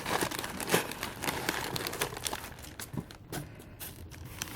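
Packaging rustling and crinkling as items are handled and unwrapped, with many small clicks and taps.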